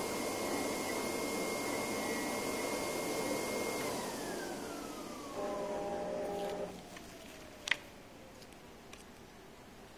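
CNC card-paper cutting plotter running with a steady machine noise and a high whine. The whine falls in pitch from about four seconds in as the machine winds down, with a brief cluster of steady tones partway through. Near the end comes one sharp click, then light ticks as the cut card is handled.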